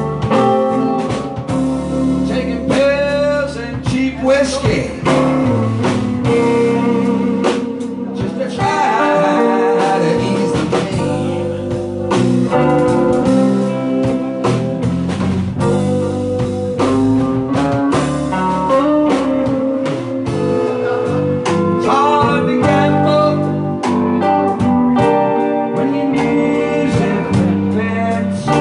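Live blues band playing an instrumental break: electric guitar solo with bending notes over bass and drums.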